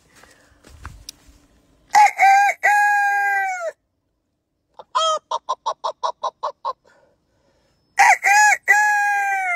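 Rooster crowing twice, a few seconds apart, each crow a short note followed by a long held one. Between the crows comes a quick run of about a dozen short, evenly spaced calls.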